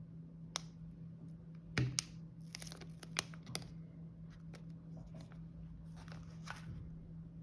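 Snack packaging being handled: crinkling and tearing rustles with scattered sharp clicks, the loudest about two seconds in.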